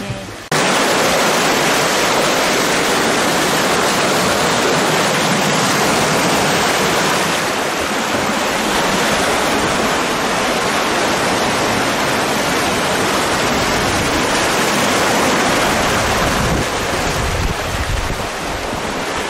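Loud, steady rushing of wind and water aboard a sailing catamaran under way, cutting in suddenly about half a second in.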